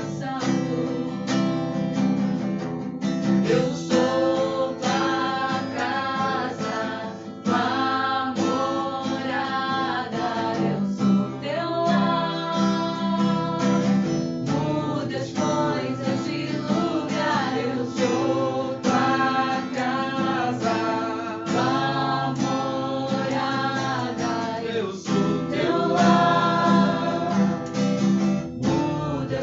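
A worship song: singing over a strummed acoustic guitar.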